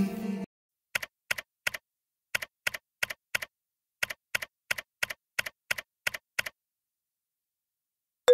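Typing sound effect: about twenty sharp key clicks in three quick runs, as if the words of the title were being typed out letter by letter.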